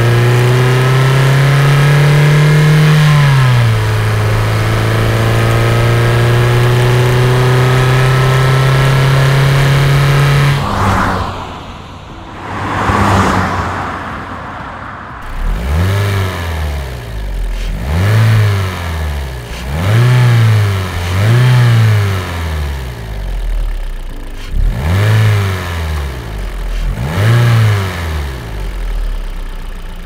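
Toyota Corolla Verso 1.6 petrol engine under steady throttle, its note climbing slowly and dropping once about three seconds in. After a cut near the middle come two broad whooshes like the car passing by, then a run of about seven quick throttle blips, each revving up and falling back.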